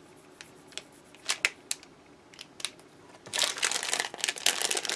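Clear cellophane bag being handled: a few light clicks and taps, then from about three seconds in a dense, loud crinkling of the plastic.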